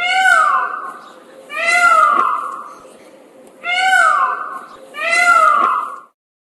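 Four drawn-out, meow-like calls, each about a second long and falling in pitch, with short pauses between them.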